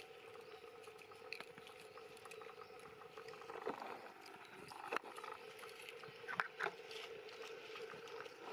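Faint rustling and crackling of dry leaf litter and twigs as a baby long-tailed macaque moves and handles a stick, with a few sharp snaps, two close together near the end, over a steady low hum.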